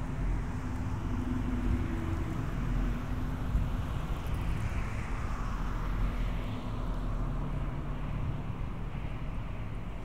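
Street traffic: a steady low rumble, with a vehicle's tyre and engine noise swelling as it passes around the middle, then fading.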